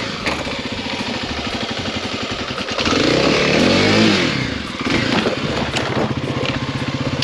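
Kawasaki KLX300's single-cylinder four-stroke engine running, revved up and back down about three seconds in, then settling to a steady, pulsing idle.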